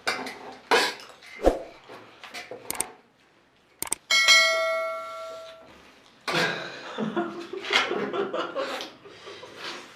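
A single bell ding that rings out and fades over about a second and a half, coming just after a moment of dead silence. Scattered clicks and knocks come before it and a stretch of busy noise after it.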